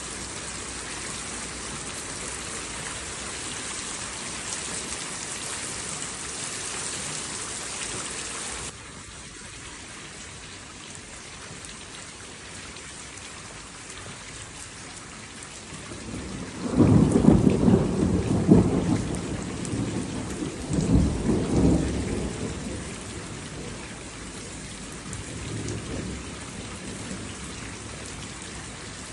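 Steady rain falling, which turns suddenly quieter about a third of the way in. About halfway through, thunder rumbles loudly, swells again a few seconds later, then fades, with a faint further rumble near the end.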